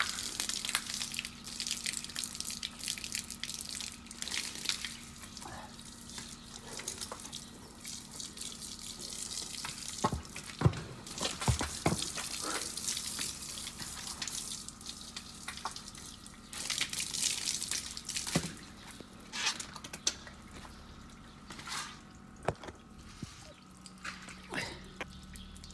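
Water from a garden hose spraying and splashing onto a horse and wet concrete, coming in surges with dripping between them. A few sharp knocks about ten to twelve seconds in.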